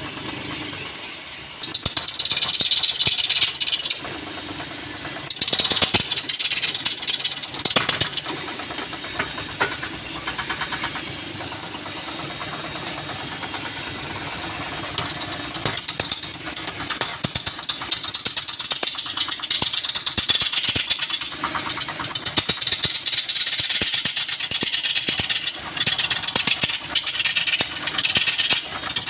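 Wood lathe turning, with a tool cutting the spinning wood in repeated bursts of scraping, hissing noise and a rapid clatter. A quieter stretch near the middle is the lathe running with little cutting.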